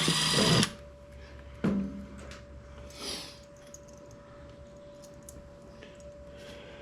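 A power drill runs briefly and stops about half a second in, followed by a single sharp knock and a short soft scrape; after that only a faint steady hum remains.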